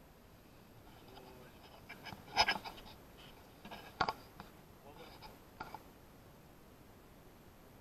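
A few short scuffs and clicks from handling a hand-held action camera, with the holder's movement on rocky ground; the loudest come about two and a half and four seconds in.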